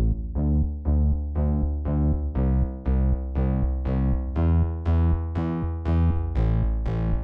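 Background music: synthesizer and electric-piano chords struck about three times a second over a steady bass.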